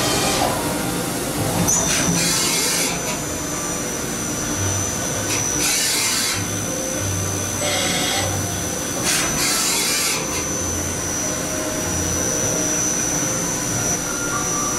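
Five-axis CNC machining center milling titanium (Ti-6Al-4V) in a finishing pass with an end mill, spindle at 2,000 rpm: steady machine running noise, joined about two seconds in by a thin high-pitched whine that holds. Four short bursts of hiss come and go over it.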